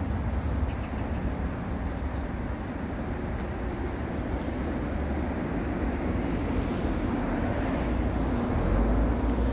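Steady outdoor rumble beneath a pair of concrete road bridges, heaviest in the low end and swelling slightly near the end, with a thin constant high whine over it.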